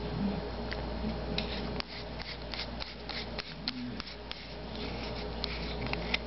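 Small clicks and rubbing as a Harbor Freight flashlight's metal body and parts are handled and twisted together, many quick ticks in the second half, over a steady low hum.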